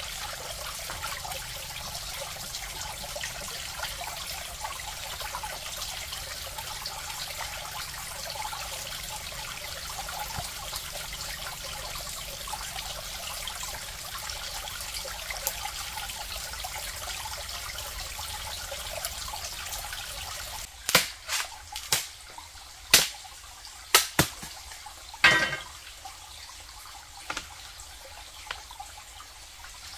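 Steady crackling wash of water, like rain or trickling water. About two-thirds of the way in comes a run of roughly eight sharp knocks or snaps over about six seconds, louder than the water, after which the water sound is quieter.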